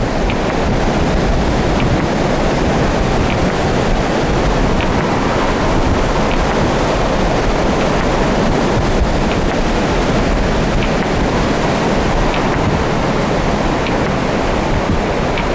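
Blizzard wind blowing hard across the microphone: a loud, steady rush with a heavy low rumble.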